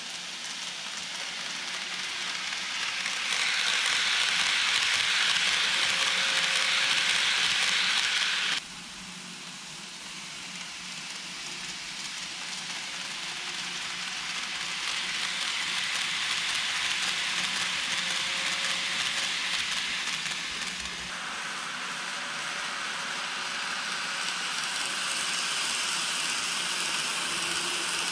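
KATO N-gauge model train (683 series 4000 'Thunderbird') running on layout track: a rolling hiss of wheels on rails that swells as the train nears and fades as it goes. The sound breaks off suddenly about eight and a half seconds in, then slowly builds again.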